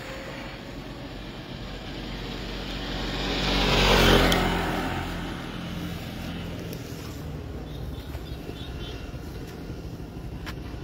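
A motor vehicle passing along the road close by, swelling to its loudest about four seconds in and then fading away.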